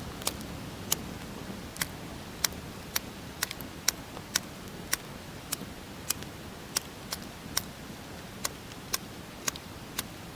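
Wood fire crackling: sharp, irregular pops about twice a second over a faint steady background.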